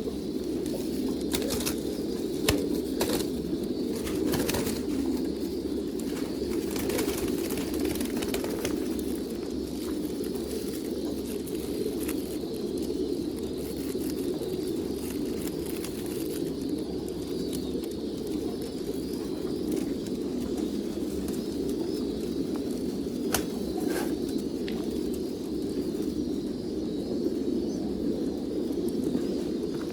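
A flock of domestic pigeons cooing continuously, a dense overlapping drone of coos. Scattered short sharp sounds break through, several in the first eight seconds and a couple more about two-thirds of the way through.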